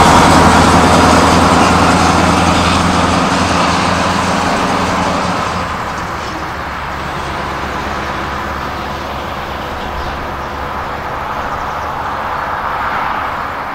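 Scania R500 truck's V8 diesel with straight vertical exhaust stacks, driving away. The engine note is loud at first, fades over the first six seconds, then carries on quieter and steady as the truck recedes.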